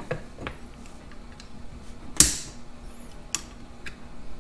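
New plastic distributor cap being seated on a distributor and clipped down: a few light clicks, the sharpest about two seconds in and another about a second later.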